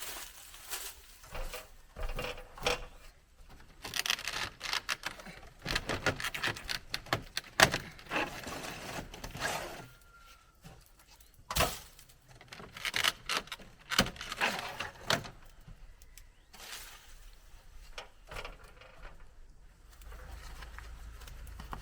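Irregular handling noises of parts being worked by hand: scraping, rustling and sharp clicks and knocks, the sharpest about a third and halfway through.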